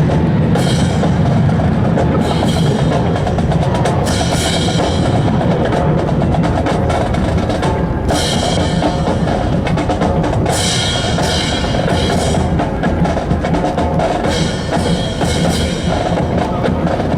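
Percussion-heavy music with drums and a steady beat, with sharp crashes every few seconds.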